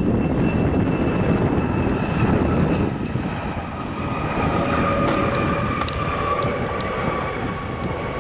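Jet airliner engines running: a broad rumble with a steady high whine that slowly drops in pitch.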